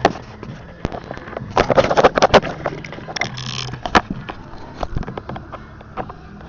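Mitsubishi 4B11 inline-four engine running with a low hum and a series of irregular sharp knocks, thickest about two seconds in: the engine knock it is being checked for.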